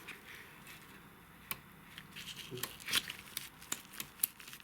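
Irregular light metallic clicks and taps from a piston being rocked in its cylinder bore in a Hyundai G4NB 1.8 engine. The play is excessive piston-to-wall clearance, which the mechanic takes as the most likely cause of the engine's knock.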